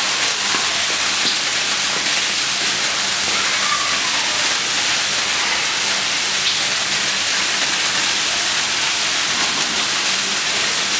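A steady, loud rushing hiss with no rhythm or pitch, unchanging throughout.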